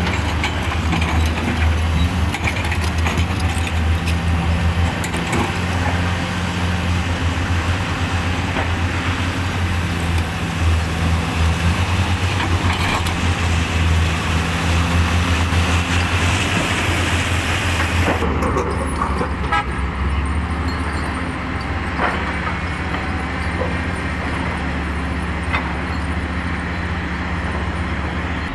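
Heavy diesel earthmoving machinery running: a loud, steady, low engine drone that swells and eases as the machines work. About two-thirds of the way through, the higher hiss drops away and the engine note continues alone.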